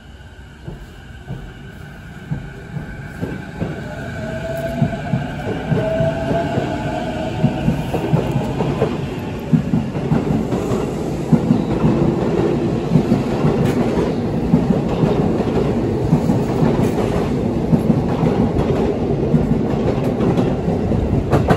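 Sotetsu 12000 series electric train pulling out of the station: its motor whine rises in pitch as it speeds up, and the sound grows louder over the first several seconds. It then turns into a steady rumble with wheels clattering over the rails as the cars pass close by.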